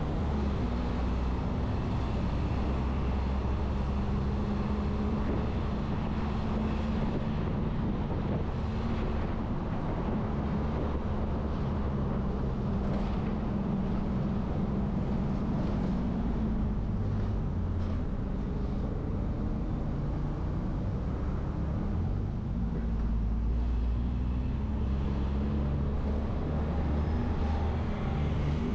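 Steady road-traffic noise: a continuous low engine hum with the even rush of tyres on the road.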